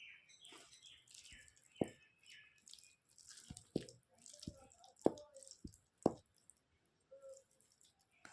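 A person eating rice and chokha: wet chewing and mouth noises with a string of sharp, wet lip-smacks and pops, roughly one a second through the middle, set among soft rustling.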